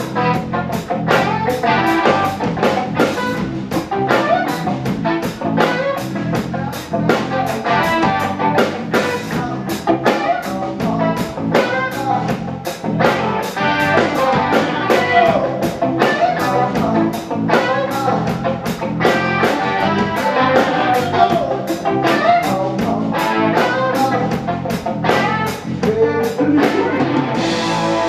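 Live rock band playing loudly: electric guitars over a steady drum-kit beat. Near the end the drums stop and a chord rings on.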